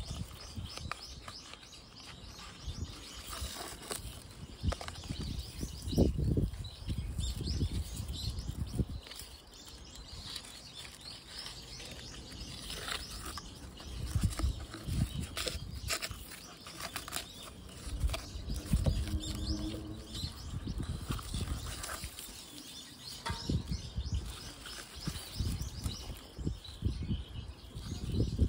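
Dry raffia rustling and a small plastic pot being handled, with irregular soft bumps and scrapes, while birds chirp in the background.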